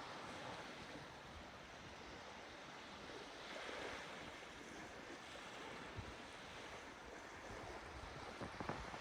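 Faint sea waves washing in, a steady soft hiss that swells briefly about halfway through.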